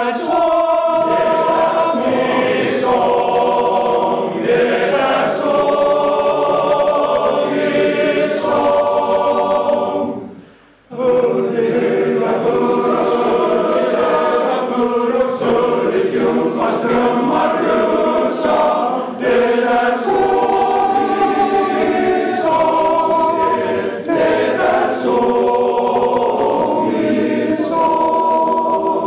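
Male choir singing a cappella in several parts, sustained chords with one short break for breath about eleven seconds in before the voices come back in together.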